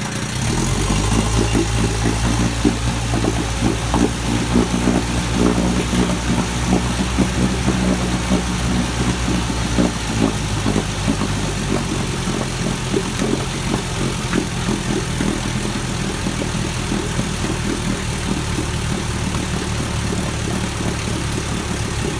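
1958 Evinrude 18 hp two-cylinder two-stroke outboard, just started cold, running in neutral. It runs faster and busier for the first ten seconds or so, then settles to a steadier, lower idle.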